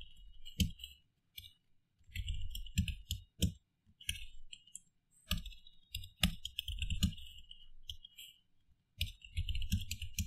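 Computer keyboard typing: short bursts of quick key clicks with brief pauses between them.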